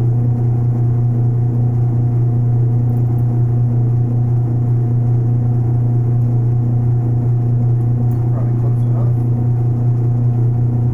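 Small benchtop metal lathe running at a steady speed: a loud, even low hum with fainter higher tones above it.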